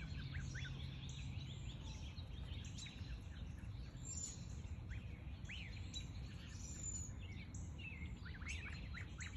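Ducklings peeping: short, high, scattered peeps, bunched in a few runs, over low background noise.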